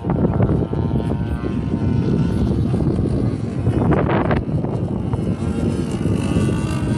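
Engine of a radio-controlled aerobatic model airplane flying overhead: a thin, distant drone that drifts slightly up and down in pitch. It sits under heavy wind rumble on the microphone.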